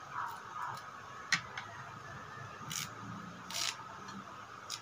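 Moringa (malunggay) leaves being stripped from their stems by hand: a few sharp snaps of the small stems and short rustles of leaves dropping into a glass bowl.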